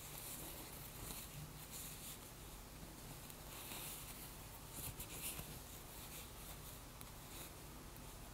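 Metal knitting needles working yarn: faint scratching and light clicks as stitches are knitted two together, busiest around the middle, over a low steady hum.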